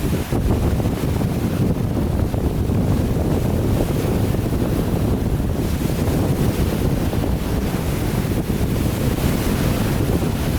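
Wind buffeting the microphone over the steady wash of wind-driven waves on a rough lake.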